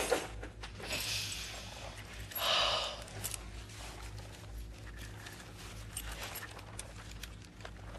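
Two short rasping noises in the first three seconds, then faint clicks and rustling as leather straps and a metal cuff are fastened round a wrist.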